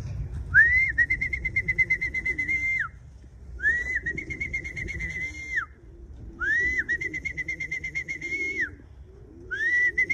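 A trilling whistle blown in four blasts of about two seconds each, at a steady high pitch with a fast warble and a quick rise and drop at each end. It is a pigeon fancier's recall signal, calling racing pigeons circling overhead down to the loft.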